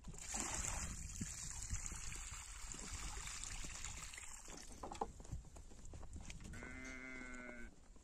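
A farm animal calls once near the end, a single steady call of about a second, over a soft rushing noise in the first half.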